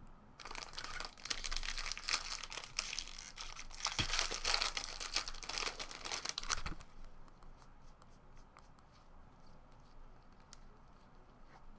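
A foil trading-card pack wrapper being torn open and crinkled for about six seconds. Then a few faint ticks.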